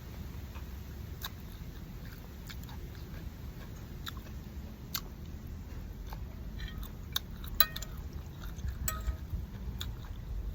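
A person chewing a mouthful of boat noodles, with scattered short sharp clicks, a few louder ones about three-quarters of the way through, over a steady low hum.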